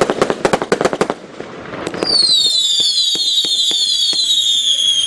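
Fireworks: a rapid string of sharp firecracker cracks for about the first second, then from about two seconds in a loud, shrill whistle made of many falling whistles overlapping, with scattered bangs, from whistling fireworks rising into the sky.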